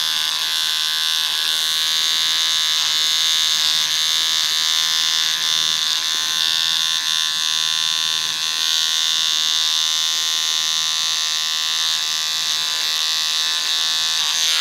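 Electric beard trimmer buzzing steadily as it cuts moustache hair along the upper lip line, with a few brief dips in level as the blade meets the hair.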